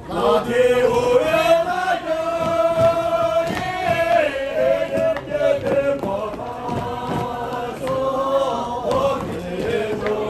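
Voices chanting in long held notes that step up and down in pitch.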